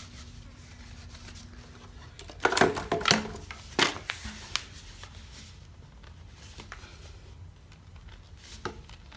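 Plastic leaf-blower nozzle and tube being twisted together, with a cluster of sharp clicks and scrapes about two and a half to four seconds in and a few lighter clicks later, as the tabs seat in their slots.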